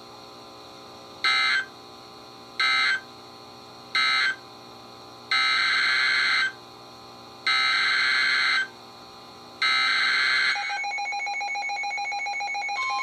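NOAA Weather Radio SAME digital data bursts: three short, harsh buzzing bursts mark the end of one warning, then three longer bursts carry the header of the next alert. After them a weather receiver starts a pulsing alert beep, and near the end the steady 1050 Hz warning alarm tone begins.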